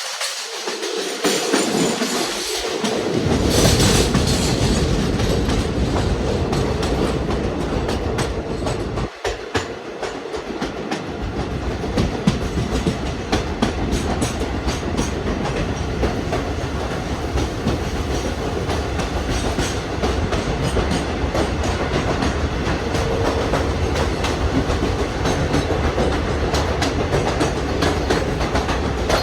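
Poorna Express passenger coaches running at speed, the wheels clattering steadily over rail joints. A deep rumble comes in about three seconds in and fades briefly near the middle.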